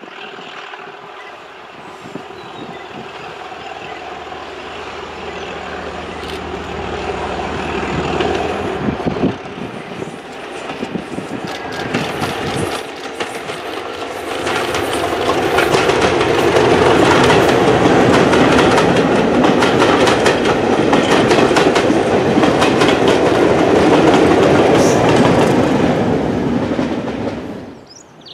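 A preserved British diesel locomotive hauling a train past, its engine growing louder as it approaches. The train then runs loudly and steadily with rapid clicking of wheels over rail joints, and the sound stops abruptly near the end.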